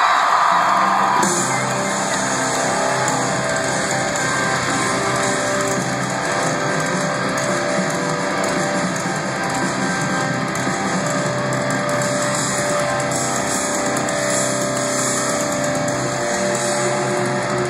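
Live rock band playing amplified electric guitars and drums, heard from the arena crowd. Crowd cheering fades out about a second in.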